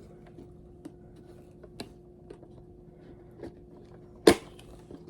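Light clicks and handling noises of packaging and boxed figures being unpacked, with one sharp, loud click a little over four seconds in, over a faint steady hum.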